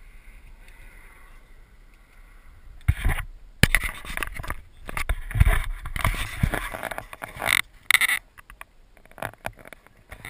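Camera handling noise: irregular knocks, rubbing and rumbling on the microphone as the camera is moved about, starting about three seconds in after a quiet stretch.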